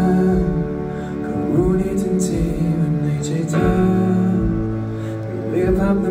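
Male singer singing live into a microphone over band accompaniment at a concert, recorded from among the audience.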